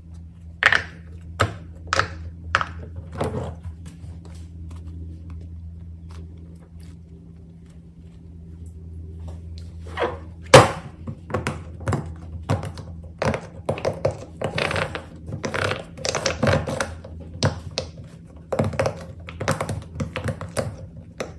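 Fidget toys being handled: irregular plastic clicks and knocks, a few at first, a lull of several seconds, then a busy run of them from about halfway, with one sharp loud knock. A steady low hum lies underneath.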